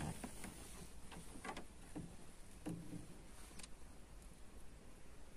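Faint, scattered clicks and light knocks, about six in all, from fishing gear and movement in a small boat, over a quiet background.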